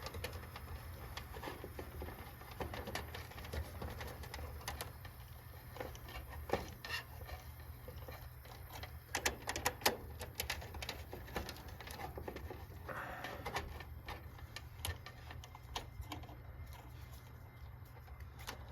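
Scattered clicks and light knocks from handling a multimeter and its leads at a heat pump condenser's control panel, over a steady low hum.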